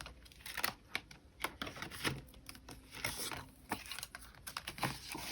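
Paper bills being handled and slid into a cash envelope: irregular light clicks, taps and short rustles of paper.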